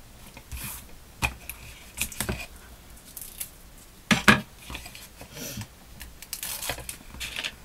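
Folded paper and sticky tape being handled and pressed together: rustling and crinkling of the paper with scattered small clicks, and one sharper tap a little over halfway.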